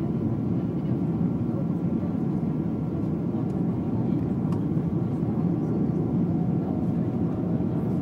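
Cabin noise inside a Boeing 777-200ER airliner on final approach: a steady, even rush of airflow and jet engine noise heard from a window seat over the wing.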